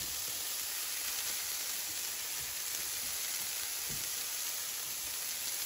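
Broccoli florets sizzling in oil in a non-stick frying pan: a steady, even hiss.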